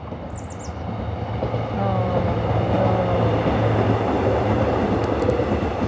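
Electric subway train passing on an open-air track; its running noise grows about a second in and stays loud through the middle, a steady low hum with a faint whine above it.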